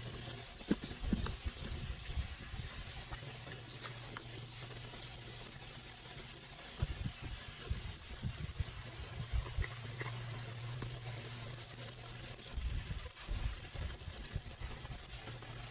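Handling noise from unboxing: irregular knocks, taps and rattles of packaging and small parts, in clusters near the start, in the middle and near the end, over a steady low hum.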